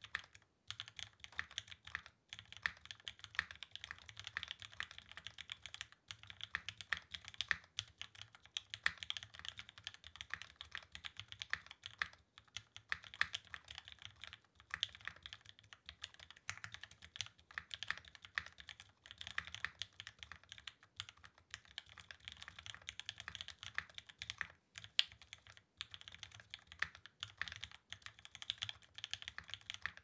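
Continuous fast typing on a Rama Works Thermal SEQ2 mechanical keyboard fitted with lubed Gateron Red Ink linear switches (205g0 lube, TX films), an aluminium plate and GMK keycaps, broken by a few brief pauses.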